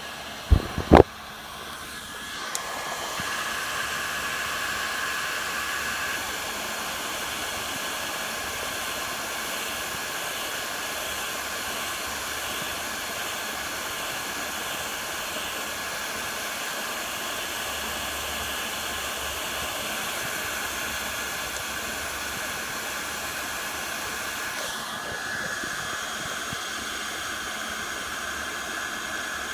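Electric heat gun running steadily, a fan-driven hiss with a steady whine in it, as it shrinks heat-shrink tubing onto a crimped ring terminal. Two sharp clicks about a second in, then the gun starts blowing about two seconds in.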